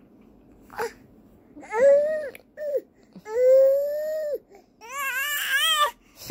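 A four-month-old baby fussing in short, high-pitched cries: a brief sound about a second in, then several drawn-out cries, the longest about a second, and a last one that wavers up and down in pitch.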